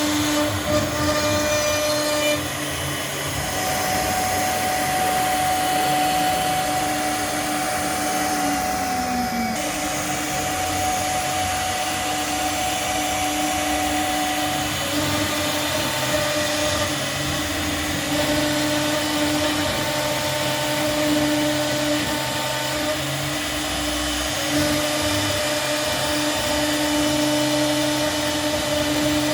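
CNC router running as it cuts, a steady whine over motor noise, with a few tones that shift or drop out every few seconds as the machine moves.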